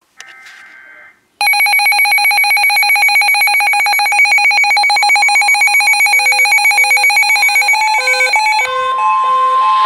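Emergency Alert System alert tones: a brief faint burst of data tones, then a loud, fast-warbling alarm tone. Near the end it changes to a steady single high tone with shorter beeps underneath.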